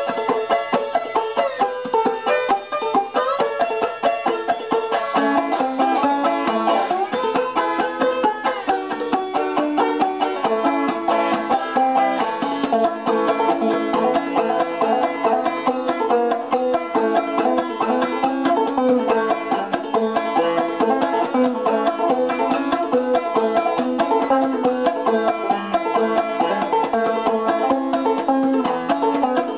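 Background instrumental music with fast plucked-string picking.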